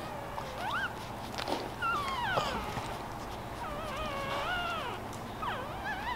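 Week-old Boston Terrier puppies squeaking and whimpering while their mother licks and nuzzles them. There are about four thin squeals that glide up and down in pitch, one of them long and wavering past the middle.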